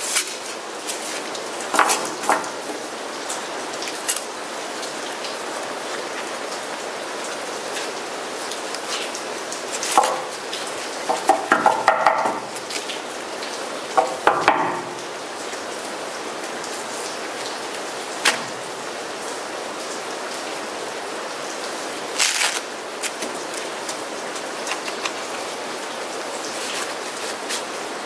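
Thin metal plates of a flat-pack folding camp stove clinking and scraping against each other as they are handled and slid in and out of a fabric pouch. There are scattered single clinks, with a quick run of ringing clinks near the middle, over a steady hiss.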